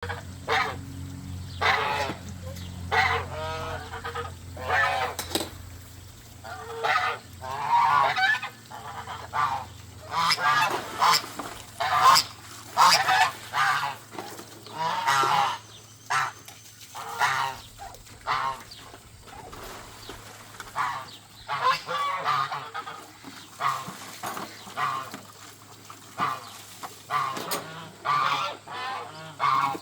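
Domestic geese honking: many loud calls, often overlapping, in quick irregular runs, over a low steady hum that is stronger in the first few seconds.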